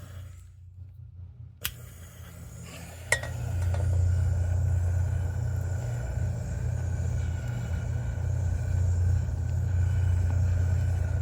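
Torch relit: two sharp clicks, then from about three and a half seconds in the flame burns with a steady low rumble.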